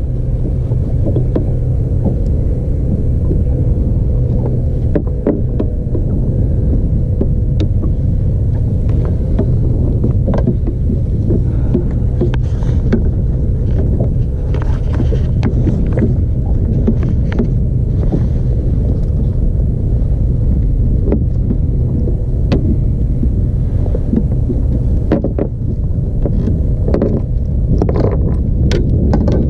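A steady low rumble with a faint hum, broken by scattered knocks and clicks as a camera tripod is handled and adjusted.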